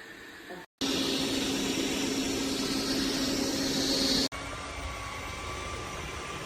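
Dreame L40 Ultra robot vacuum running: a steady whir with a low hum that cuts in suddenly about a second in, then drops abruptly to a quieter whir about four seconds in.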